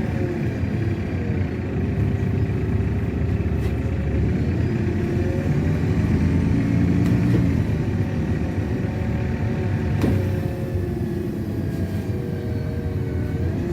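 LiAZ-6213.65 articulated city bus in motion, heard from inside: steady engine and road rumble, with a drivetrain whine that rises and falls in pitch as the bus speeds up and slows.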